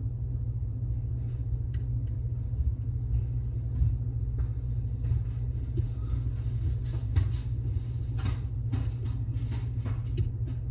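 Faint scattered clicks of a pick and tension wrench working the pins of a Mul-T-Lock Classic Pro dimple lock, the lock held in a deep false set, over a steady low rumble or hum.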